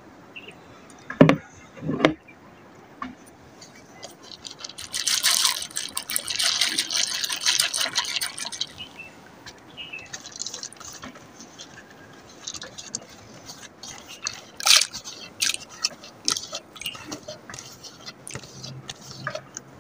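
Clay cooking pot on a wood fire: its ceramic lid knocks twice as it is lifted off, then liquid hisses loudly in the hot pot for about three seconds, followed by scattered small pops and crackles as it heats toward a boil.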